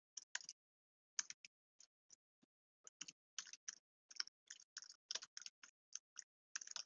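Faint typing on a computer keyboard: irregular runs of quick key clicks, with a couple of short pauses in the first half.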